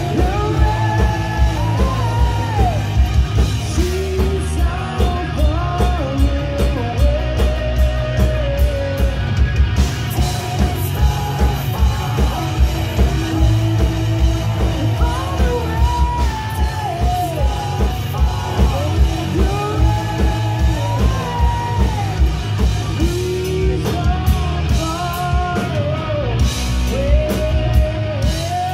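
Hard rock band playing live and loud: a sung lead vocal over electric guitars, bass and a steady drum beat, heard through the club PA in a large room.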